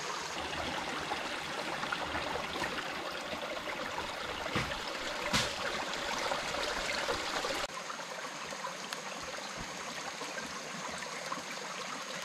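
Steady rush of flowing water, like a forest stream, with two short knocks about four and a half and five and a half seconds in. Around two-thirds of the way through, the low rumble drops out abruptly and the sound turns a little quieter.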